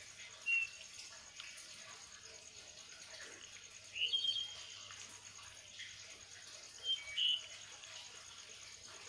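A few short, high bird chirps: one about half a second in, a brief cluster about four seconds in, and two more near seven seconds, over a faint steady high-pitched tone and low hum.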